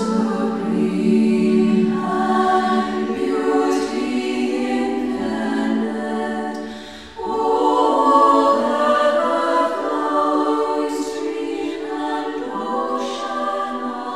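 Background music: a choir of women's voices singing unaccompanied sacred music in long, held phrases, with a short break about halfway through.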